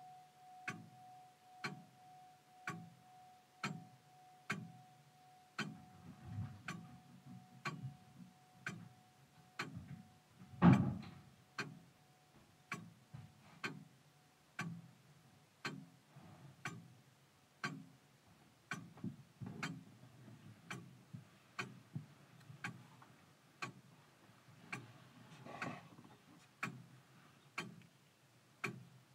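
Longcase clock ticking steadily, about one tick a second, while the ring of its last chime note lingers as a thin tone and fades out over the first ten seconds. A single knock about ten seconds in is the loudest sound.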